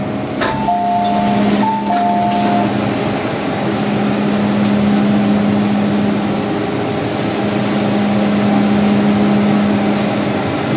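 Steady hum and running noise of an MTR M-Train passenger car. About half a second in, a short two-tone electronic chime sounds for roughly two seconds.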